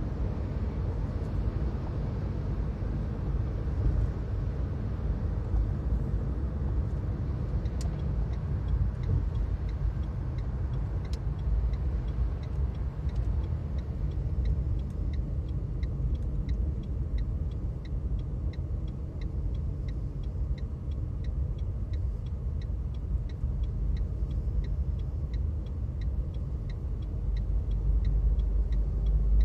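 Car driving, heard from inside the cabin: a steady low road-and-engine rumble that swells near the end. A regular light ticking, roughly twice a second, joins about a quarter of the way in.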